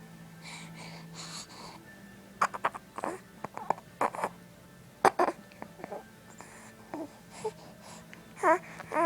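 A sleeping young child's noises: breathy, hissing breaths at first, then scattered mouth clicks and short, high-pitched moaning cries, two of them near the end.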